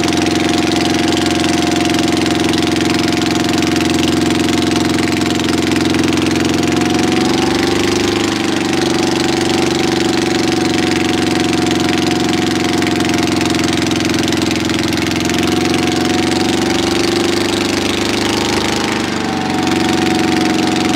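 Small fishing boat's engine running steadily at low speed. Its pitch lifts slightly about eight seconds in and wavers briefly near the end.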